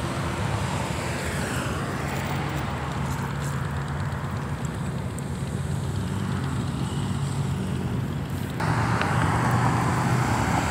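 Road traffic of cars and trucks driving past, their engines running low and steady. About eight and a half seconds in it suddenly grows louder and fuller.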